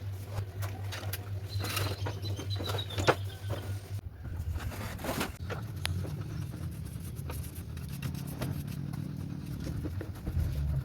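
Scattered light taps, clicks and scrapes of hands working with materials, over a steady low hum; the background changes abruptly about four seconds in.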